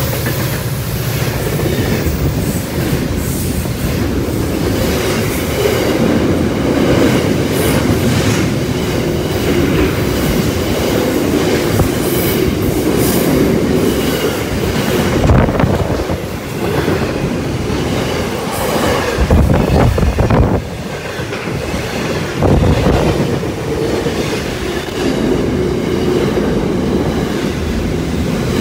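Freight train of container wagons passing close by, steel wheels clacking over the rail joints amid a steady rumble and rattle of the wagons.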